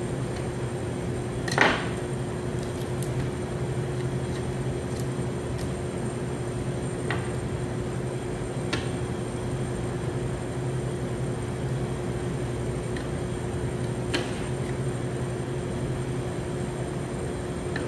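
A steady machine hum, with a few sharp knocks of knife and raw chicken against a plastic cutting board while a chicken is deboned; the loudest knock comes about one and a half seconds in.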